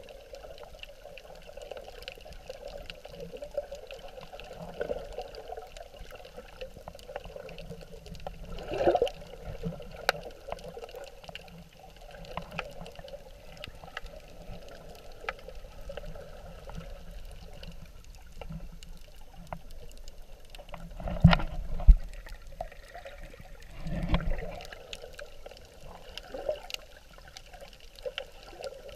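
Muffled underwater water noise picked up by a submerged camera while snorkeling: a steady dull wash, with one louder surge about a third of the way in and two more close together about three quarters of the way through.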